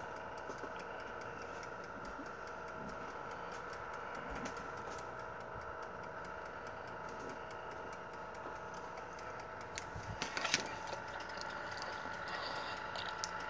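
Steady faint kitchen hum holding several constant tones, with a fine regular ticking under it. About ten seconds in comes a short run of soft clicks and scrapes from a fork working in a stuffed baked potato on a paper plate.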